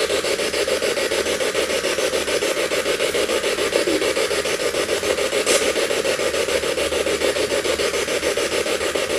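Spirit box sweeping through radio stations: a continuous, rapid, choppy rasp of radio static.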